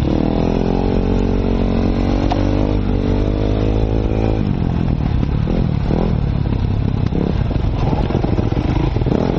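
Enduro dirt bike engine pulling at steady throttle along a trail, its note holding and rising slightly; about four and a half seconds in the throttle eases and the engine note turns uneven, with knocks and rattles from the rough ground.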